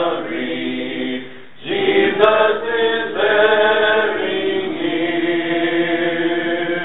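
Church congregation singing a hymn a cappella: unaccompanied voices holding long notes, with a brief break for breath about a second and a half in.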